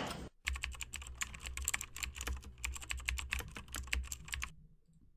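Computer keyboard typing sound effect: a quick, uneven run of key clicks over a low hum, starting about half a second in and stopping abruptly near the end.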